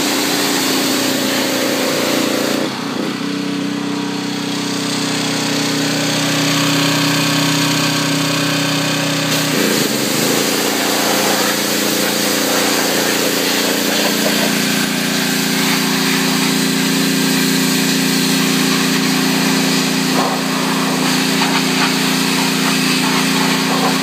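Pressure washer running steadily: a motor hum under the hiss of the water jet spraying on metal. The hum's pitch shifts about 3 seconds and again about 10 seconds in.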